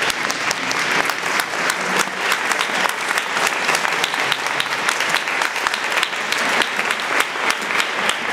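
Audience applauding: a steady, dense mass of clapping.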